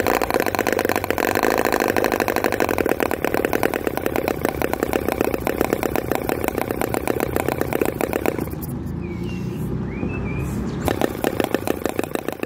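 Miniature V-twin petrol model engine running with rapid, even firing, a sign that both cylinders are firing evenly at even temperatures. About eight seconds in the firing mostly drops away for a couple of seconds, then picks up again.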